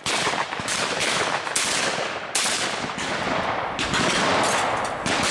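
Shotguns firing a quick, uneven string of shots, one every half second to a second, each trailing off in echo.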